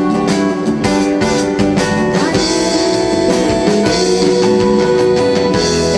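Live pop band playing an instrumental passage between vocal lines: guitar over a steady drum beat.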